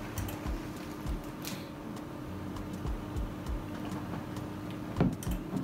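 Mouth and table eating sounds: chewing with small clicks and soft thumps, a short rustle of a paper napkin, and a louder knock near the end, over a steady low hum.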